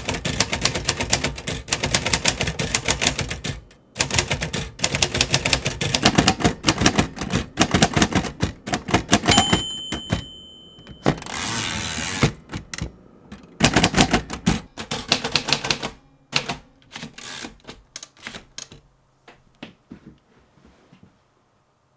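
Royal manual typewriter typed on rapidly, key strikes clattering in quick runs. About nine seconds in the margin bell dings and the carriage is swept back. Typing resumes and thins out to a few last keystrokes.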